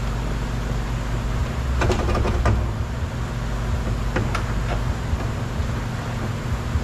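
Side mirror being worked loose from a Chevy Tahoe's door shell: a cluster of plastic clicks and knocks about two seconds in and a few more about four seconds in, over a steady low hum.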